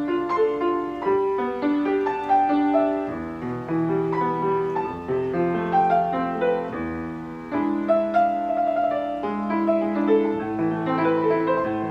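Steinway piano playing a classical-style piece: a melody in the middle register over a moving bass line, notes struck in steady succession without pause.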